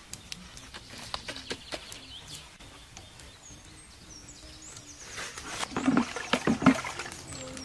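Scattered clicks, knocks and rustling as a crocodile carcass is fixed onto a green bamboo pole on banana leaves, growing louder about two seconds before the end as the skewered crocodile is lifted. Faint bird chirps come and go.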